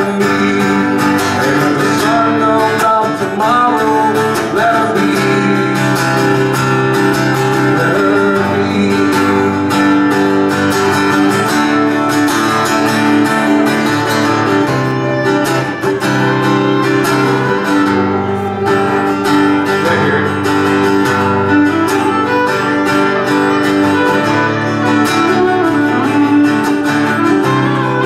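Live country music led by a strummed acoustic guitar, playing steadily with no breaks.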